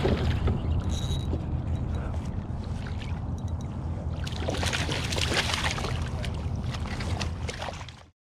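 Hooked coho salmon splashing and thrashing at the surface beside a kayak while it is played to the landing net, with heavier splashing about halfway through, over a steady low rumble.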